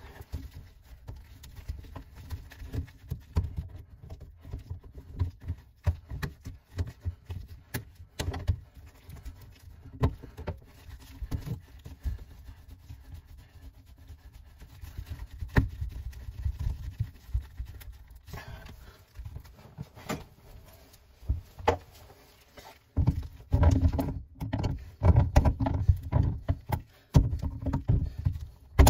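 Gloved hands handling plastic sink drain fittings at the trap and slip nut: irregular taps, knocks and rubbing with low handling rumble, busier and louder in the last few seconds.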